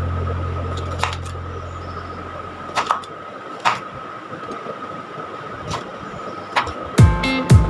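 Chef's knife cutting a green bell pepper on a bamboo cutting board: five or six irregular sharp knocks of the blade on the wood, over a faint steady high tone. A deep held note fades out at the start, and loud plucked guitar music comes in near the end.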